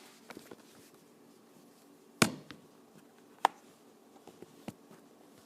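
Ice being knocked loose and cleared out: scattered light taps and clicks, with two sharp, hard knocks about two and three and a half seconds in.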